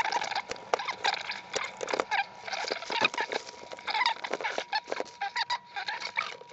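Clear plastic bag crinkling under the hands, a dense run of small crackles and short squeaks, while a circuit board and ribbon cable are handled. A faint steady whine sits underneath.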